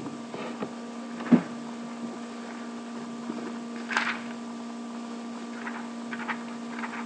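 Steady electrical hum, with a few short knocks and clicks over it, the loudest about a second in and another near the middle.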